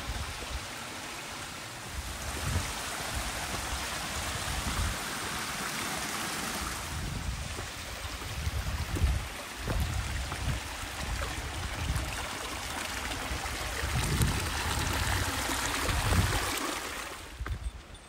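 A mountain stream rushing steadily, with irregular low thuds underneath. The water sound drops away near the end.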